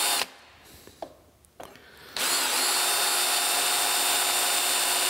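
Hand drill boring an eighth-inch stop hole through a cracked cast iron saw foot: a short burst of the drill at the start, a brief pause, then from about two seconds in the drill runs steadily with a constant motor whine as the bit cuts through the iron.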